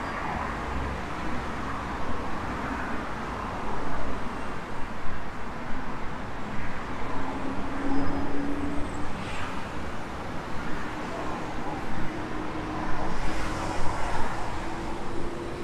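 City ambience of steady road traffic noise. A faint low hum comes in about halfway through and rises slightly in pitch toward the end.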